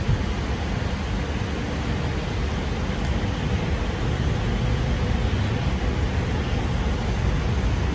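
Steady running noise inside a Sydney Trains K-set electric train carriage under way: a low rumble of the wheels on the track with a faint steady tone through it.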